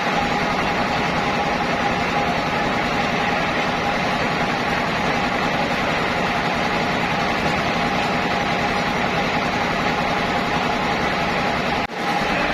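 Sawmill machinery running steadily: a continuous engine drone with a constant mid-pitched whine, briefly dropping out near the end.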